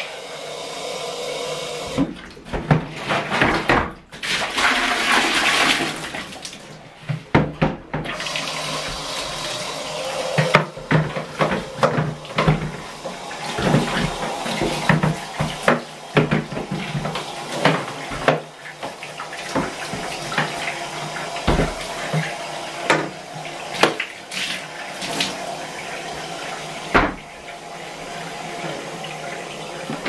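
Bath tap running steadily with water splashing over a vacuum cleaner part being washed, and repeated knocks and clatter of plastic as the part is handled in the tub.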